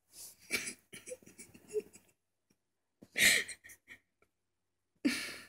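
Short, separate breathy vocal sounds, like breaths or throat clearing, with quiet gaps between them; the loudest comes about three seconds in.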